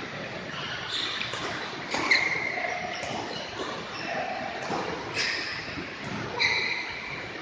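Badminton doubles rally in a large hall: sharp racket hits on the shuttlecock every second or two, with short squeaks of players' shoes on the court floor.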